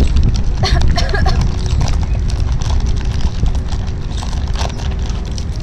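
Plastic candy wrappers crinkling in the hands as sour candies are unwrapped, in clusters of short crackles, densest about a second in and again near the end, over a steady low rumble.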